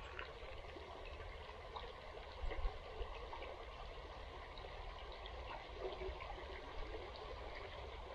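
Small river flowing over shallows: a steady rippling and trickling of water, with one brief louder bump about two and a half seconds in.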